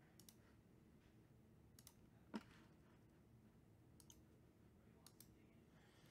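Faint computer mouse clicks, coming in quick pairs about four times, with one sharper tick a little after two seconds in, over a near-silent room.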